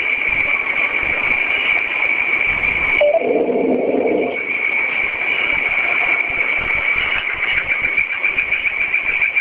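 Noisy, hissy recording of an unexplained 'strange sound': a steady high-pitched whine runs over static, and a lower droning tone comes in for about a second around three seconds in.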